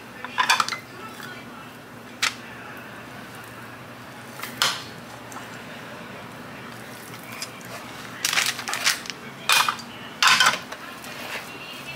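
Red plastic burger press being handled: sharp plastic clacks and knocks as its lid and press parts are opened, lifted and set down on the counter. A few single clacks come in the first half, and a bunched run of them comes in the last few seconds.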